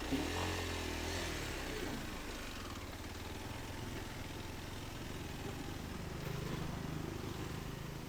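A motorcycle engine running faintly, its pitch rising and falling in the first two seconds, then settling to a low steady hum over a soft hiss.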